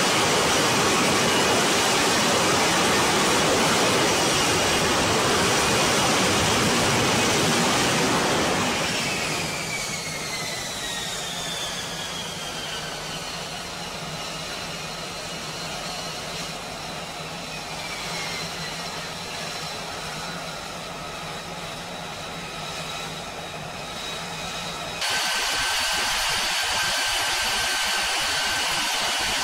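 F-35B Lightning II jet in a vertical landing, its engine and lift fan making a loud, steady rushing noise for about the first eight seconds. The level then drops and several turbine whines slide slowly down in pitch as the engine winds back on deck. Near the end an abrupt cut brings a steady, louder jet whine holding one pitch.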